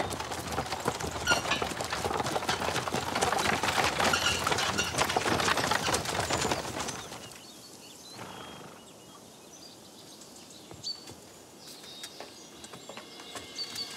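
Horses and a carriage arriving over dirt, hooves and wheels clattering densely, then dying away about halfway through, leaving birds chirping.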